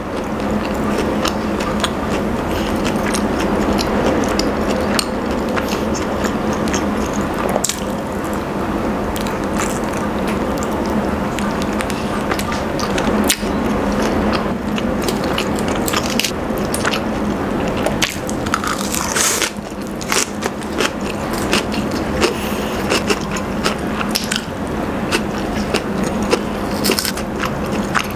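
Close-miked chewing of roast chicken and romaine lettuce salad: mouth and bite sounds with many short crackles and clicks throughout.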